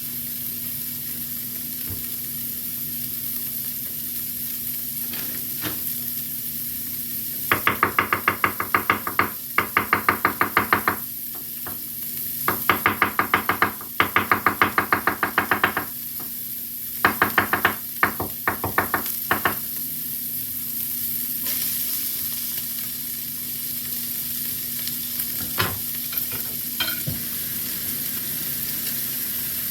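Meat sizzling in a frying pan, with three spells of quick, rhythmic scraping strokes, about four a second, as a utensil stirs the food around the pan in the middle.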